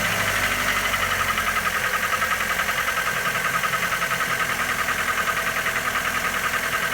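Mitsubishi Lancer 9's 1.6-litre four-cylinder engine idling with a fast, even knock beating through it: the engine knock the owner is demonstrating.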